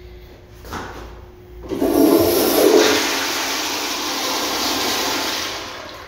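Tankless toilet with a chrome flushometer valve flushing: a knock a little under a second in, then a loud rush of water starts just under two seconds in, holds steady and begins to fade near the end.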